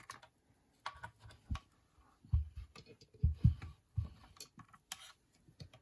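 Irregular small clicks and light taps of jewelry and small tools being handled on a tabletop, as a ring's stone is checked.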